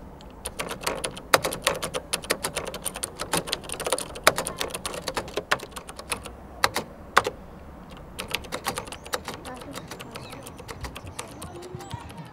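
Fast, irregular keystrokes on a computer keyboard. There is a short lull about seven and a half seconds in, then another run, and the clicks grow fewer and fainter near the end.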